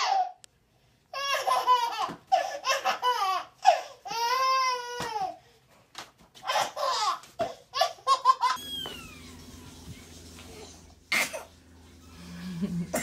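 A baby laughing hard in repeated high belly laughs. After about eight and a half seconds the laughing stops and a low steady hum is left, with a single sharp knock a little later.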